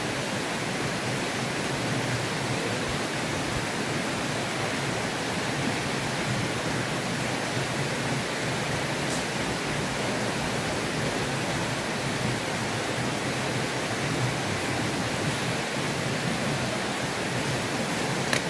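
Steady, even rushing noise, like running water, unchanging throughout, with a faint click about halfway through and a sharper one near the end.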